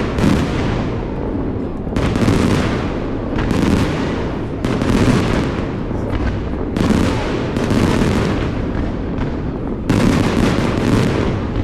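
Fireworks bursting in quick succession, a loud bang every one to two seconds, each fading out over a continuous low rumble.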